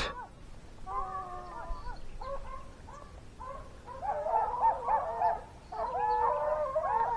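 A pack of hunting hounds baying in full chase after a white-tailed deer, several dogs calling over one another in rising-and-falling howls. The calls grow louder and denser about four seconds in.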